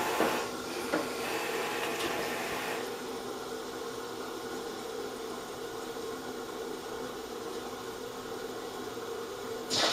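Carimali Multi automatic coffee machine running while it dispenses a cappuccino: a steady mechanical hum with a hiss that eases about three seconds in, with a click about a second in and another at two seconds. It ends with a short louder burst as the machine stops.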